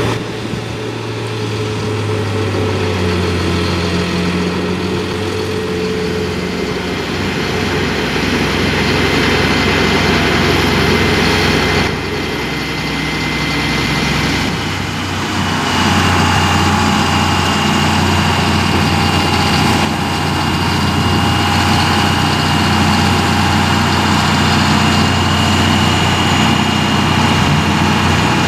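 A heavy machine's engine running steadily. About fifteen seconds in it shifts up, and a steady high whine joins it.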